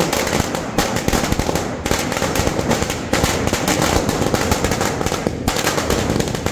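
A string of firecrackers going off on the ground, a rapid, unbroken run of sharp bangs.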